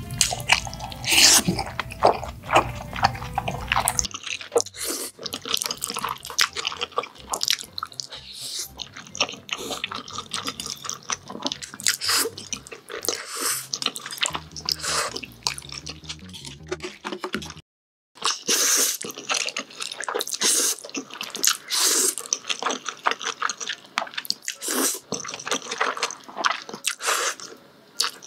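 Close-miked eating sounds of jjajangmyeon (black bean noodles) being slurped and chewed: a busy run of wet slurps, smacks and mouth clicks. It breaks off briefly about two-thirds of the way through.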